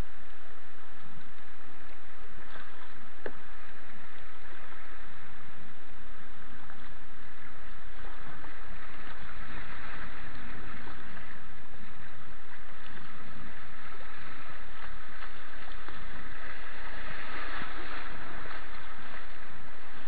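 River water rushing over shallow Grade 1 rapids, heard from a kayaker's helmet-mounted action camera. The rush swells twice, about halfway through and again near the end.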